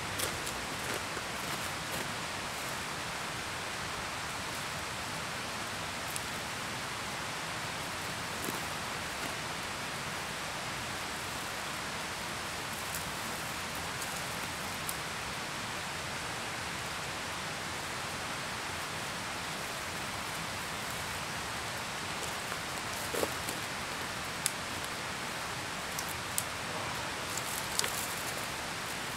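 A steady, even outdoor hiss, with a few short snaps and rustles of dry branches and brush being gathered and dragged, mostly in the last part.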